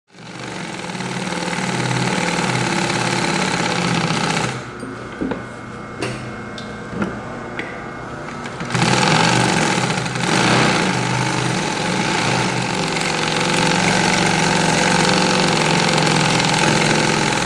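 Industrial single-needle walking-foot lockstitch sewing machine running at speed, stitching through layered leather. About four and a half seconds in it drops to a quieter stretch with a few separate knocks, then runs fast and loud again from about nine seconds.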